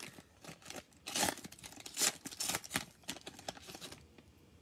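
Cellophane wrapper of a trading card cello pack being torn open and crinkled by hand, a series of irregular crackles and rustles.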